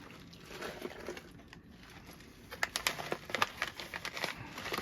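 Snack packaging crinkling as a wrapped item is handled, with a quick run of sharp crackles in the second half.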